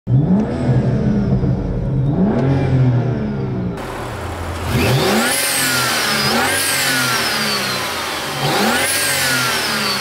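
BMW 335i's turbocharged N55 inline-six revved in free blips while parked: two revs heard from the cabin, then, after a cut, three sharp blips with the BMS performance intake fitted. Each blip brings a high whistle that rises and then falls away as the revs drop.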